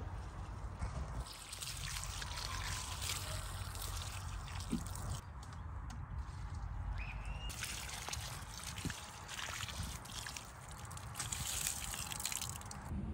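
Water pouring from a plastic watering can onto garden soil and plants, a splashing trickle that pauses briefly a couple of times.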